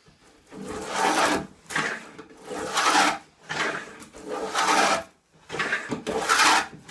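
Wooden tongue-and-groove plane shaving along a board's edge in repeated strokes, about one a second, each a rasping swish of the iron cutting wood.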